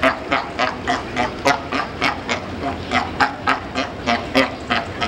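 Sea lions barking: short, loud honking barks repeated rapidly, about three a second.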